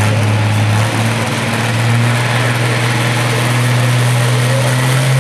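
Turbocharged diesel engine of a 10,000 lb Pro Stock pulling tractor running steadily, its pitch edging up slightly, while the tractor stands still with its exhaust stack smoking.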